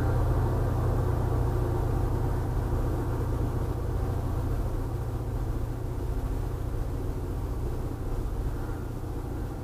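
Steady low vehicle rumble, slowly fading.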